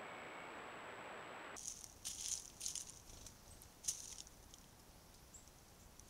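Steady trail-camera hiss for the first second and a half, then short, sharp crackling rustles of dry leaf litter, several in a row and one louder near the middle, as a white-faced quail-dove moves and forages on the forest floor.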